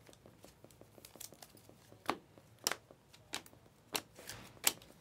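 Glossy Panini Mosaic trading cards being flipped through one by one, with light ticks and slides of card on card. About two seconds in, sharper snaps begin, coming about every two-thirds of a second.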